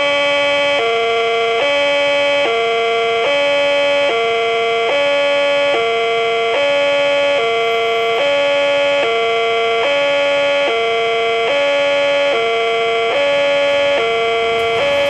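Railway level-crossing warning alarm sounding with the barrier down, an electronic signal alternating between a higher and a lower tone, each held a little under a second, warning of an approaching train.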